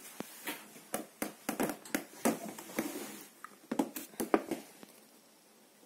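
Irregular sharp taps and knocks, about a dozen over the first four seconds, as a cat moves at a stainless steel bowl on a wooden floor, the bowl knocking against the floor. It dies away to faint room sound near the end.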